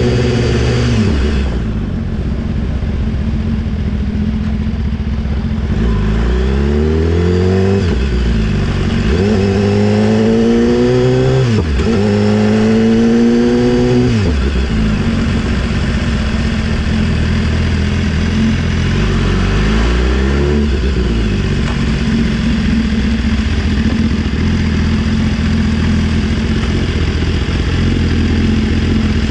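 BMW S1000RR's inline-four engine through an Austin Racing GP1R full Inconel exhaust, idling, then revved three times in a row, each rev climbing for about two seconds before dropping back to idle. A shorter blip of the throttle follows later, then steady idle again.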